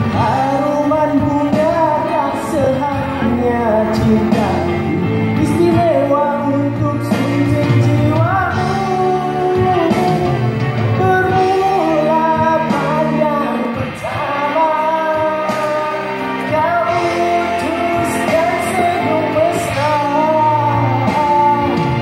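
A voice singing a melody into a microphone over instrumental backing music.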